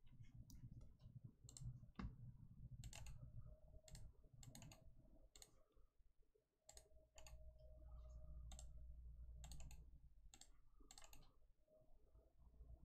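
Faint, irregular clicks and taps over a low hum.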